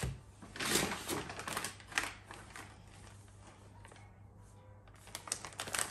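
Plastic food packets rustling and crinkling as they are handled and laid on a wooden table, in bursts about a second in, at two seconds, and again near the end.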